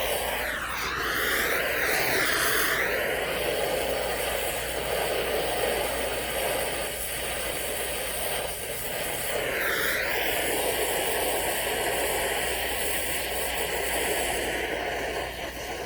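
Oxyacetylene torch flame hissing steadily while heating a joint for brazing, its tone sweeping briefly near the start and again about ten seconds in.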